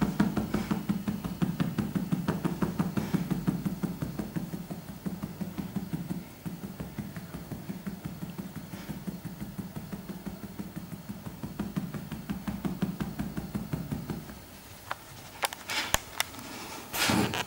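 Fast, even pulsing, several beats a second, from a woman's spontaneous rhythmic breathing and body reaction as she lies on a treatment couch. It weakens about fourteen seconds in; near the end come a few sharp clicks and a short rustle.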